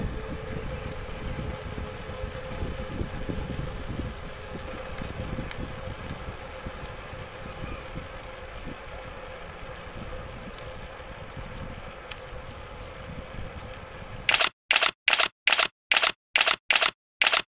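Wind buffeting a moving camera's microphone as a low, steady rumble while riding, then, near the end, about nine sharp camera-shutter clicks in quick succession, roughly three a second, with silence between them.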